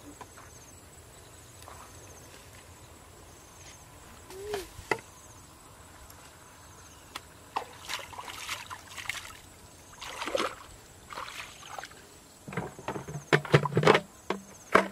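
Hands groping and splashing in shallow muddy water, with irregular sloshes that come more often and louder in the second half.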